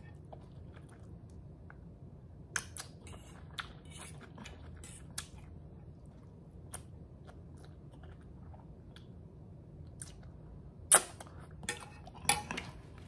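Close-miked chewing of a mouthful of spicy noodles, with scattered wet mouth clicks and smacks. Near the end come a few louder clicks.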